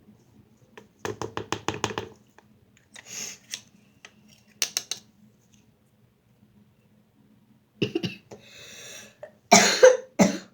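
A girl coughing, the loudest coughs coming near the end, with a quick run of short knocks or strokes about a second in.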